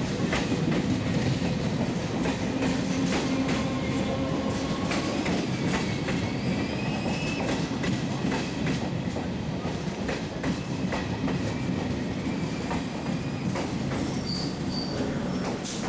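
Electric multiple-unit local train running into a station: a steady rumble with wheels clicking over rail joints and faint, thin wheel squeal coming and going.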